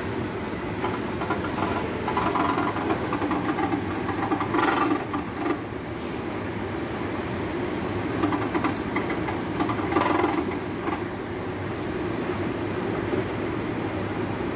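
Ceiling-suspended air conditioner running on a test run with an abnormal noise: a steady machine hum with an uneven grating noise that swells several times.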